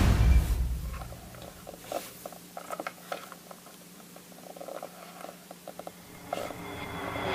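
Music fading out over the first second, then quiet with scattered soft clicks and rustles of small plastic toy figurines being handled, over a faint steady hum.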